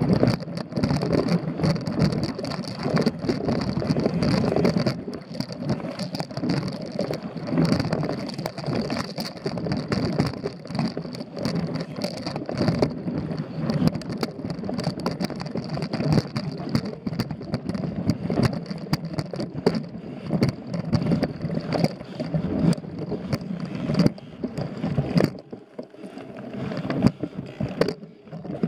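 Mountain bike ridden over a dirt forest singletrack: the knobby tyres rumble on the ground while the frame and parts rattle and clatter over roots and stones. It goes quieter for a couple of seconds near the end.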